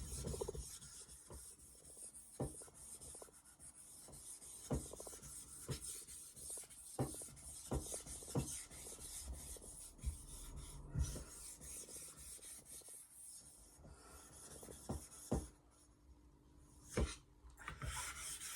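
Wet whetstone scraped in repeated back-and-forth strokes: a gritty rasp with a sharper click at each turn of the stroke, roughly one a second.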